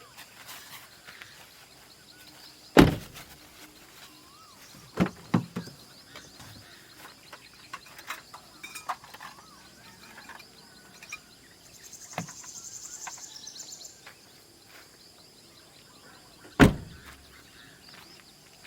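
Five sharp knocks, the loudest about three seconds in and near the end, with a quick pair around five seconds, over a steady high insect drone. A brief buzzing insect call comes in past the middle, and there are a few faint bird chirps.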